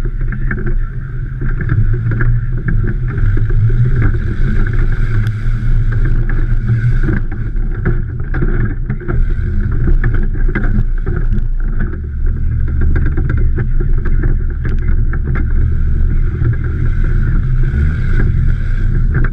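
Off-road 4x4's engine running steadily as the vehicle drives over rough, bumpy ground, with frequent short knocks and rattles from the body and suspension.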